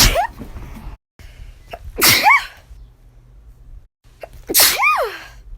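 A young woman sneezing: the tail of one sneeze at the very start, then two full sneezes about two and a half seconds apart. Each is a sharp noisy burst with a voiced squeak that rises and falls in pitch.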